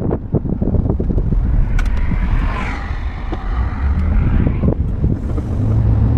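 A car driving: a loud low road and engine rumble with scattered sharp knocks. A hiss swells and fades in the middle, and a steadier low engine hum takes over near the end.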